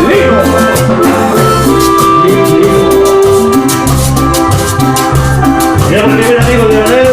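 Cumbia band music: a sustained keyboard-like melody over a steady bass and drum beat.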